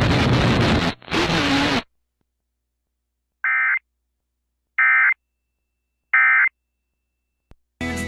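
Three short, harsh digital data bursts a little over a second apart: the SAME end-of-message code that closes a NOAA Weather Radio warning broadcast. Before them a stretch of hissy noise cuts off about two seconds in, and music starts just before the end.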